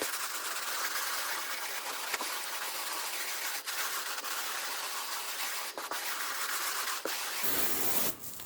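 A brush scrubbing sand into carpet pile, a steady scratchy hiss with a few faint clicks.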